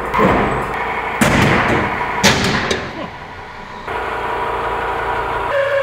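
Large indexable helical end mill (porcupine cutter) full-slotting metal on a horizontal machining centre: a loud, rough cutting noise with sharp bangs about a second and two seconds in, then a steadier, lower hum.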